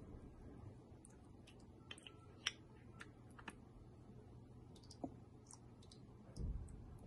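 Small clicks and taps of tiny plastic miniature props being handled and set down on a table, with a soft low thud near the end.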